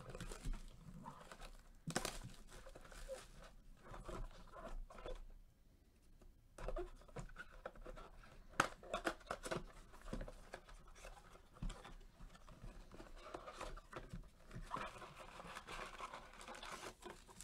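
Shrink-wrap and cardboard of a Panini Court Kings trading-card box being torn open by gloved hands, then the foil card packs pulled out: soft, irregular tearing and crinkling with scattered sharper clicks.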